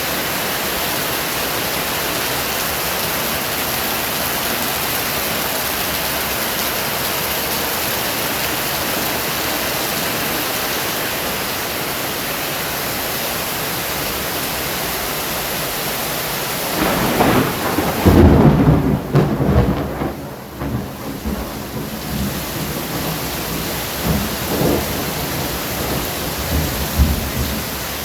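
Thunderstorm: a steady hiss of heavy rain, broken about seventeen seconds in by a loud thunderclap that rolls into low rumbles, with a few smaller rumbles near the end.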